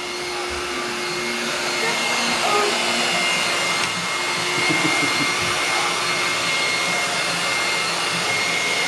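Corded stick vacuum cleaner running steadily: rushing air with a constant motor whine.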